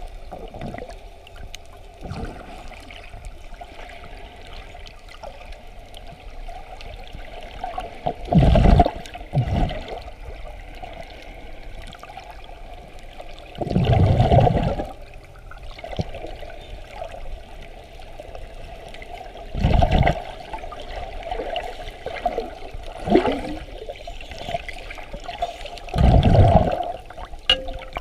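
Muffled underwater water noise picked up by a submerged camera, with about six louder whooshing surges of moving water and bubbles, two of them lasting over a second.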